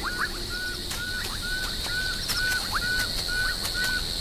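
Night-time wild chorus: one animal repeats a short, even call note about three times a second over a steady high-pitched insect drone.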